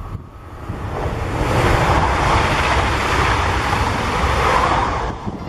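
Passenger multiple-unit train passing close by at speed: a loud rush of wheels on rail and air that swells over the first second and a half, holds, then falls away about five seconds in.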